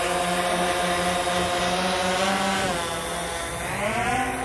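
Quadcopter drone's electric motors and large propellers humming steadily. About three seconds in, the pitch dips and then rises as the drone climbs away, and the hum grows a little fainter near the end.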